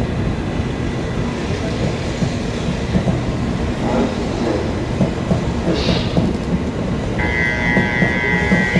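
923 series Doctor Yellow Shinkansen inspection train pulling out of a station: a steady rumble of wheels and running gear, with some clatter. About seven seconds in, a steady high tone joins.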